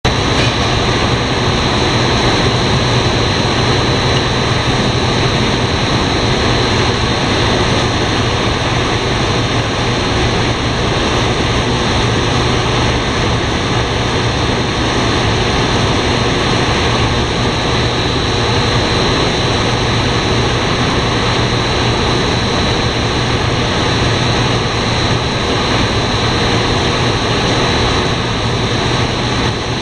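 Fried-snack extrusion line of twin-screw food extruders running: a loud, steady mechanical drone with a low hum and a thin steady high tone, unchanging throughout.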